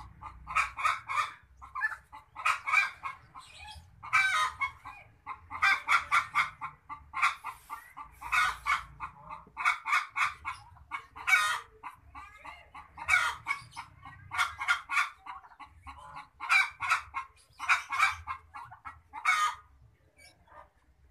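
Newborn otter pups calling in short squeaky bursts, about one a second and repeated many times, stopping shortly before the end.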